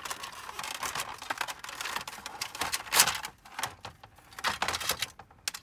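Irregular plastic clicking and rattling as cables and their connectors are handled and pulled out of a label printer's plastic housing, with one louder knock about three seconds in.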